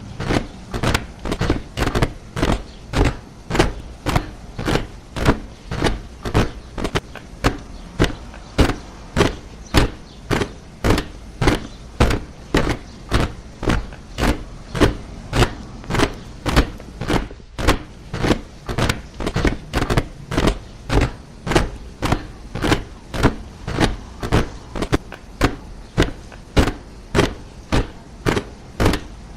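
A body of soldiers marching in step, boots striking the ground together in an even rhythm of about two steps a second.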